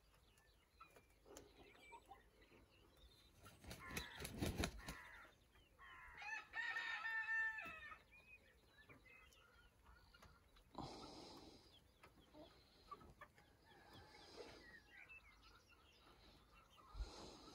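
Faint chickens clucking, with a young cockerel crowing once, a drawn-out pitched call about six seconds in. A short rustling noise comes just before it.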